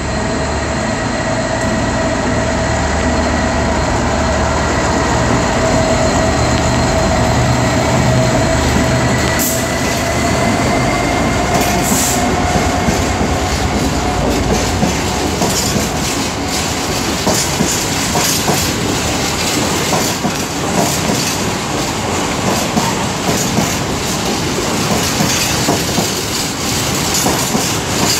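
DB Cargo UK Class 66 diesel-electric locomotive, with its two-stroke V12 engine, running past with a steady whine that rises slightly in pitch near the middle. It is followed by the freight wagons rolling by, clicking over the rail joints with some wheel squeal.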